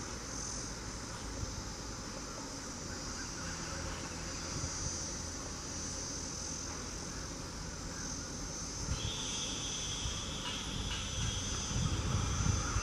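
Insects chirring steadily in a high pitch over a low rumble. From about nine seconds in, a steady higher whine joins them, and another comes in near the end.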